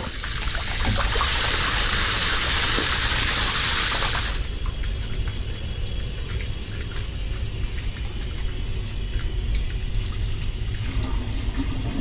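Steam boiler blowdown: water rushing out of the boiler's drain pipe in a strong jet and splashing across the floor, draining the over-full boiler down to mid sight glass. About four seconds in the rush drops off sharply to a smaller, steadier flow.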